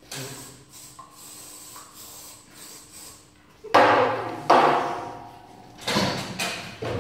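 Aerosol hairspray hissing in the first few seconds, then loud bursts of laughter from about halfway through.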